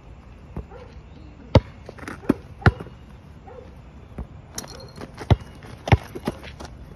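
A basketball bouncing on a hard floor: about six sharp, unevenly spaced bounces rather than a steady dribble.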